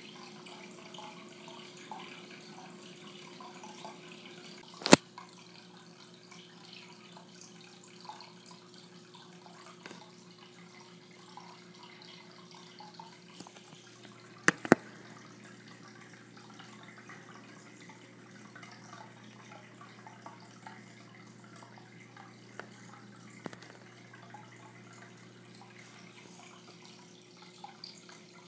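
Aquarium filter running: a steady trickling water wash with a constant low hum. Two sharp knocks stand out, one about five seconds in and a quick double about halfway through.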